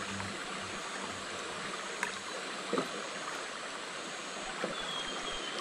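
River current rushing steadily, with a few light knocks.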